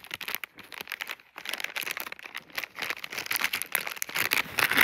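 Candy wrapper crinkling as it is handled, a dense run of small crackles that gets busier and louder from about a second in.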